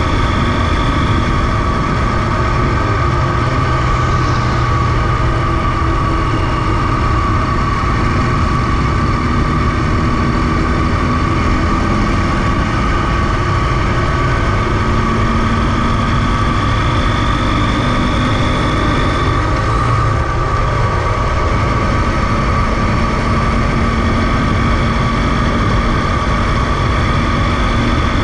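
Motorcycle engine running at a steady cruise with wind and road noise, heard from a camera mounted on the bike while riding in a group of motorcycles. The sound is loud and even, with no sharp changes in revs.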